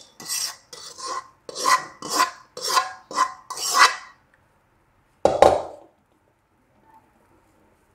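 A metal utensil scraping fried lachha semai (vermicelli) out of a metal pan, in a run of short rasping strokes about two a second, then one louder clank of metal about five seconds in.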